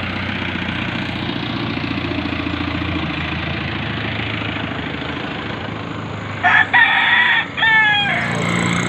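A rooster crows once, loudly, about two-thirds of the way through: a long held note that breaks into a falling final note. Before it, a motor vehicle's engine hums steadily.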